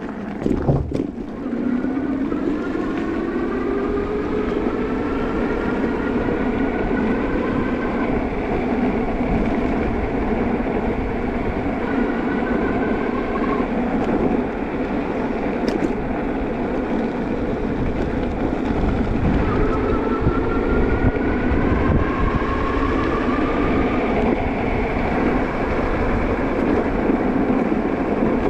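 Juiced HyperScrambler 2 e-bike's hub motor whining while riding, the whine rising in pitch twice as the bike picks up speed, over a steady rush of wind and tyre noise. A single knock about a second in.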